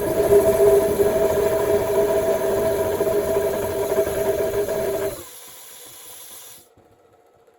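Compressed air hissing through a homemade oil burner, a loud steady rush with a steady whistling tone, cut off abruptly about five seconds in; a fainter high hiss runs on briefly and then stops.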